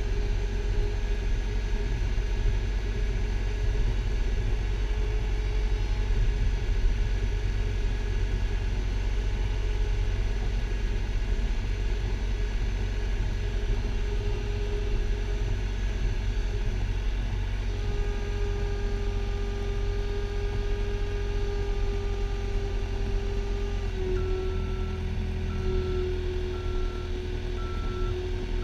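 Skid steer loader engine running steadily, heard from inside the cab, its note shifting a couple of times as the machine works. From about 24 seconds in, a backup alarm beeps about once a second as the machine reverses.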